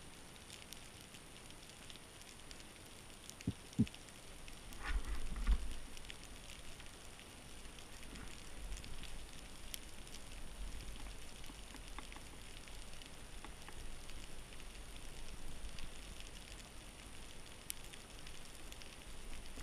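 Underwater ambience heard through a camera housing: a steady fine crackling and clicking over the seabed. A few low knocks come around four and five seconds in, and a low rumble of moving water follows from about five seconds on.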